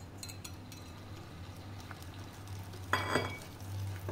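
Flour poured into a glass bowl of egg-and-milk batter, with faint soft patter, then about three seconds in a wire balloon whisk clinks against the glass and starts stirring the batter by hand. A steady low hum runs underneath.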